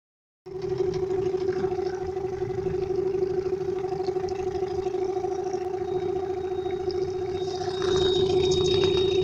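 Golfstream 9.9 outboard motor running with a steady whistle over the engine noise, the whistling the owner is asking about. A thinner, higher whistle joins about six seconds in, and the motor gets louder near the end.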